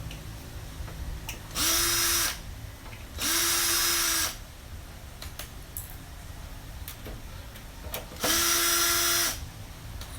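Electric drill-driver backing out a computer power supply's mounting screws: three short runs of about a second each, the motor spinning up and winding down each time.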